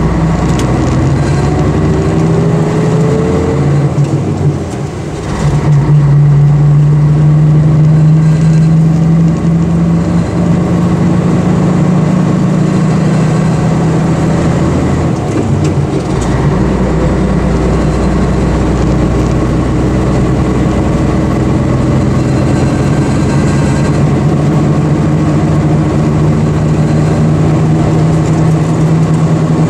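Scania diesel engine of an Ikarus coach running under way, heard from inside the bus, with a rising whine in the first few seconds. The engine note dips briefly about four seconds in, then comes back louder and holds steady.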